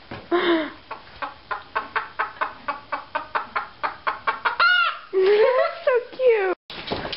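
Chicken clucking: a short call, then a run of quick clucks at about four a second, then a sharp squawk and a longer wavering call that rises and falls. The sound cuts off suddenly near the end.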